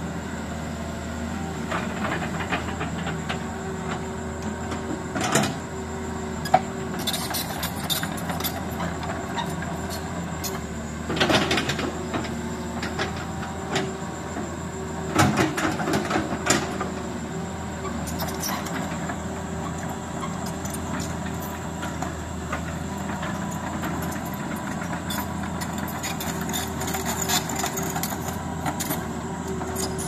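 Heavy diesel construction machinery running steadily, with a few metallic knocks and clanks around the middle.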